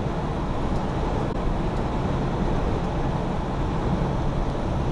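Steady drone of a semi-truck's engine and tyres, heard from inside the cab while cruising at highway speed.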